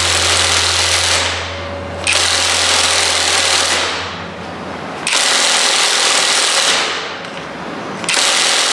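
Mensela ID-L1 cordless impact driver hammering a 20 cm wood screw into a wooden fence post. It runs in four bursts of rapid impacts, stopping briefly about a second in, near the middle, and again a little before the end.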